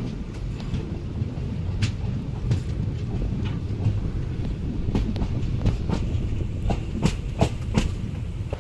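Passenger train running at speed, heard from an open coach doorway as it crosses a river bridge: a steady low rumble with sharp clicks of the wheels over rail joints, coming more often in the second half.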